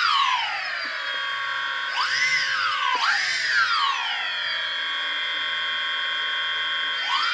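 Stock brushless motors of a DJI Phantom Vision quadcopter whining at idle speed without propellers. The pitch is blipped up and back down twice a couple of seconds in, and again near the end.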